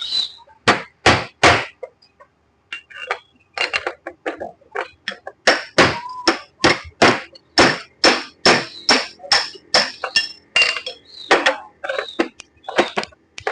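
Hammer blows on the metal parts of a Wagon R drive shaft under repair, sharp and ringing. Three blows come about a second in, then after a short pause a long run of blows at about two to three a second.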